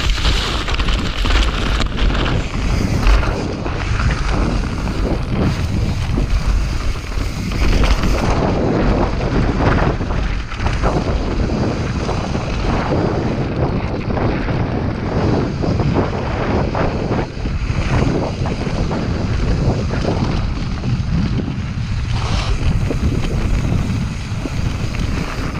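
Mountain bike riding fast over a rough dirt trail: wind buffeting the bike-mounted camera's microphone over a steady rumble of knobby tyres on dirt and stones, with frequent rattles and knocks as the bike bounces over bumps.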